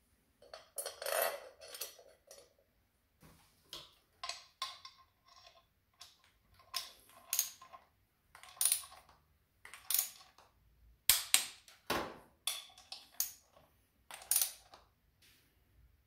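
Small metal bolt and hand tools clinking, then a ratcheting screwdriver clicking in short, irregular strokes as a bolt is driven into the motorcycle's engine fittings.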